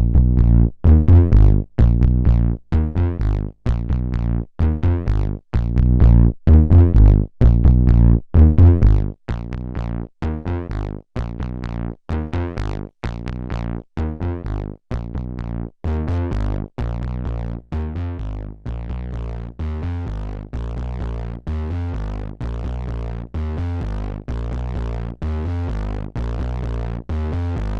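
Bass synthesizer played through a Gamechanger Audio Plasma Pedal, an overdrive that distorts the signal with high-voltage discharges in a xenon-filled tube, playing a repeating pattern of short, distorted bass notes with brief gaps between them. About nine seconds in, the notes drop a little in level and carry on more evenly.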